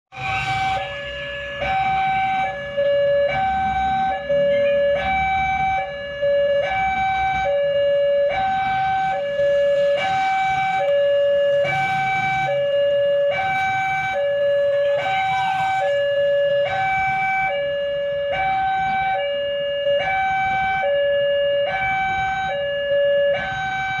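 Railway level-crossing warning alarm, an electronic two-tone signal swapping between a higher and a lower tone about every two-thirds of a second, sounding because a train is approaching and the crossing is closed. A low rumble of idling road vehicles sits underneath.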